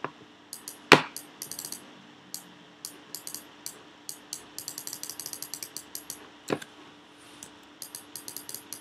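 Bursts of light, rapid clicking from a computer mouse and keyboard being worked, with a louder knock about a second in and another a little past the middle.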